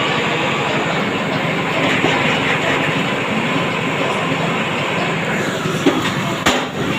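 A tractor-mounted drilling rig running: a steady, loud engine and machinery noise, with one sharp knock about six and a half seconds in.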